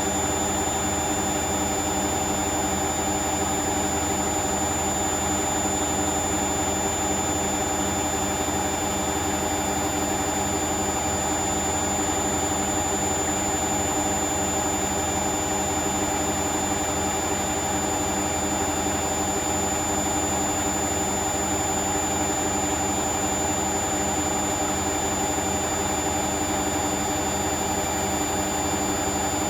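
Hoover Vision washing machine in its final spin at 1000 rpm: the drum spinning at full speed, with a steady hum and a constant high whine.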